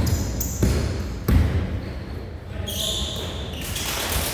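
Basketball being dribbled on a hardwood gym floor, echoing in the hall, with bounces about every two-thirds of a second in the first half. Then come high squeaks, typical of sneakers on the court.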